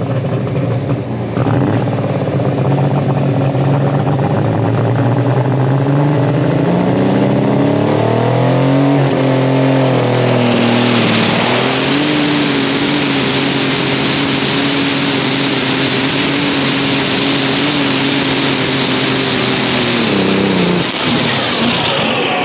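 Super Stock pulling tractor's turbocharged diesel engine under full throttle, heard from on board. Its note climbs over the first nine seconds and then holds high and steady as a loud rushing hiss joins in. About twenty-one seconds in the engine note falls away sharply as it comes off the throttle.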